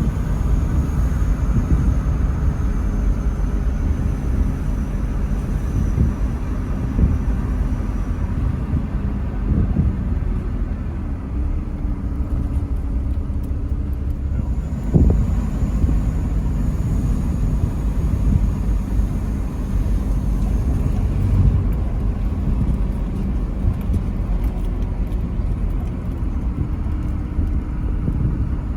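Truck driving along a road: a steady low rumble of engine and tyres, with a faint high whine over parts of it and a single knock about halfway through.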